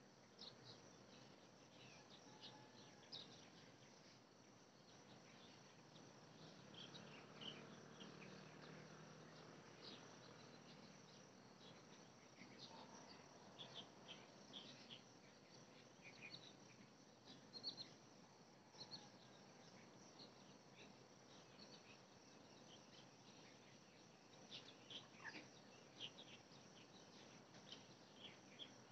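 Near silence: faint outdoor ambience with scattered short, high-pitched chirps. A faint low rumble rises and fades about a quarter of the way through.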